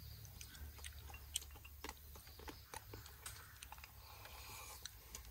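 A man chewing a mouthful of braised quail and rice: faint, irregular clicks and smacks of chewing.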